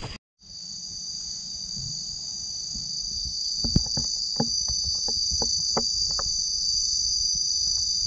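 Steady, high-pitched chorus of insects, with a run of about a dozen short, sharp clicks a little under halfway through.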